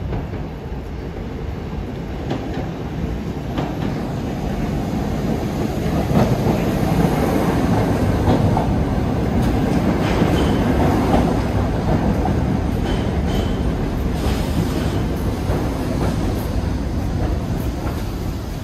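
New York City subway train running along the track, its wheels clattering over the rails, growing louder over the first few seconds and then slowly easing off. A few short, high wheel squeals come in the second half.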